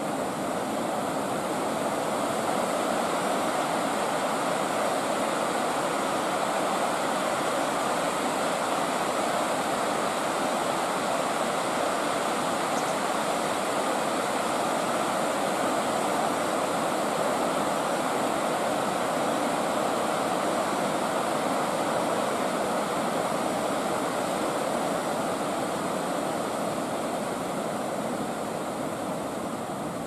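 River water pouring over a low weir: a steady rush of white water that eases slightly near the end.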